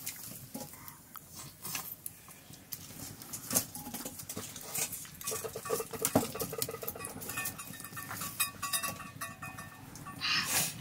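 Eating by hand from steel plates: scattered clicks and scrapes of fingers and rice against the metal. Brief pitched vocal sounds come in about five seconds in and again near the end.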